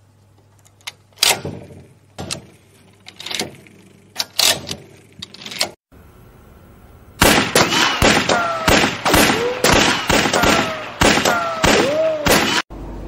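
Pistol cartridges clicking one by one into a magazine under a speed loader: a few sharp, spaced clicks with short ringing tails. After a brief break, a much louder, rapid run of sharp hits mixed with short sliding tones starts about seven seconds in and cuts off suddenly near the end.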